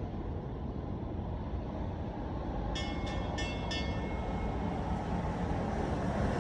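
A steady low rumble, with four short, high electronic beeps in quick succession about three seconds in.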